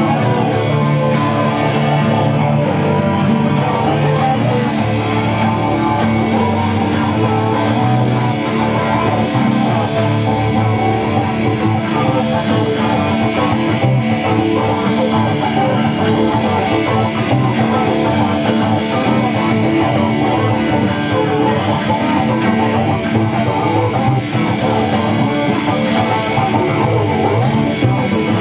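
Two acoustic guitars played together, strummed and picked steadily without a break.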